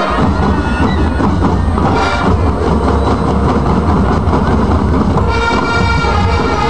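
Massed marching bands playing: drums and low brass, with sustained brass chords that grow stronger about five seconds in.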